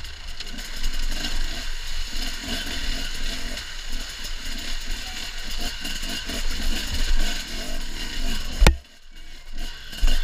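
Husqvarna two-stroke enduro motorcycle engine revving on and off the throttle as the bike picks its way over riverbed boulders, with knocks and scrapes of the bike on rock. A sharp knock near the end, after which the sound drops away for about a second.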